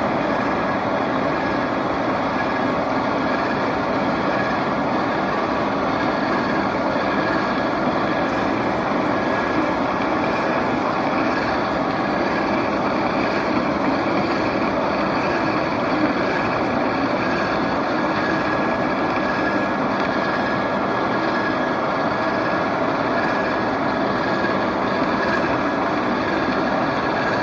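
Milling machine running steadily while cutting a worm, a continuous machining noise with a faint steady whine.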